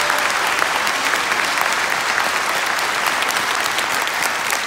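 A large audience applauding in a theatre: dense, steady clapping from many hands.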